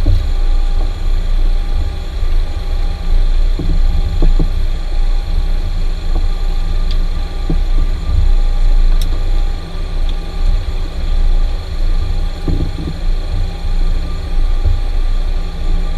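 Cockpit sound of an Avro RJ100 taxiing: the steady deep rumble and constant whine of its four Honeywell LF507 turbofans, with a few dull thumps from the airframe rolling over the taxiway and two or three faint clicks in the middle.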